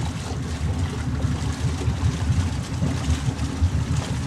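Motorboat engine idling with a steady low rumble while the boat is cast off from its mooring, warming up at idle before getting under way.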